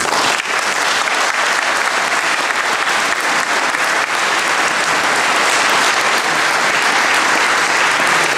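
An audience applauding, many hands clapping. It breaks out suddenly and holds steady.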